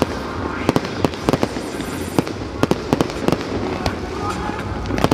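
Aerial fireworks bursting in quick, irregular succession: many sharp bangs and crackles, one after another.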